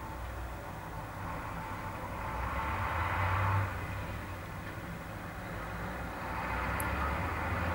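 Street traffic: two cars pass close by, each a swell of tyre and engine noise that rises and falls away, the first peaking about three and a half seconds in, the second near the end, over a steady low traffic rumble.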